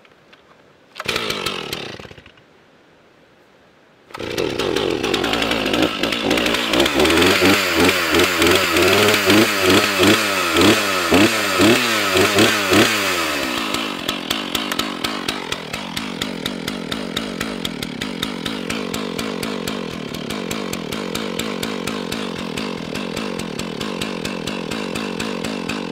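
Stihl two-stroke chainsaw being started: a short burst about a second in, then the engine catches about four seconds in. It is revved up and down in quick repeated blips for about nine seconds, then drops to a steady idle.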